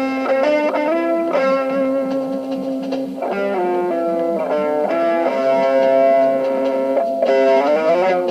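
Electric guitar with distortion playing a lead of long, held notes, with several pitch slides, including a rising slide near the end.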